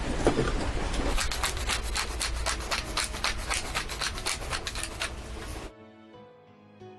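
Wooden pepper mill grinding black pepper: a fast, even run of gritty grinding clicks, about four a second, that stops abruptly about six seconds in.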